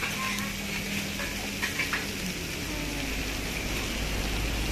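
Meat sizzling on a hot flat-top griddle, a steady hiss, with a few light clicks of metal utensils in the first two seconds. A low rumble comes in about halfway through.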